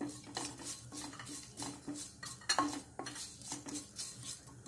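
Spatula scraping and knocking against the bottom and sides of a metal pot while stirring mustard seeds, cumin and dried chillies frying in oil, a string of irregular scrapes and taps.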